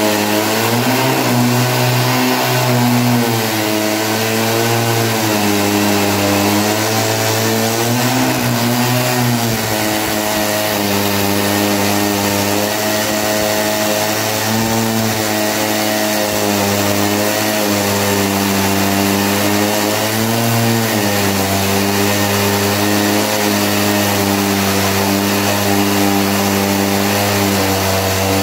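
Chainsaw running at high speed while cutting through a pine log, its engine pitch dipping and recovering several times under the load of the cut, then holding steady through the second half.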